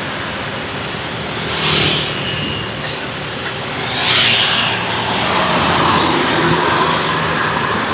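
Road traffic passing close by: a steady hum of engines and tyres, with two vehicles swelling past about two and four seconds in.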